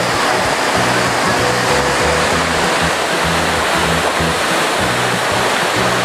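Steady rush of a waterfall splashing onto rocks, mixed with background music that carries a bass line.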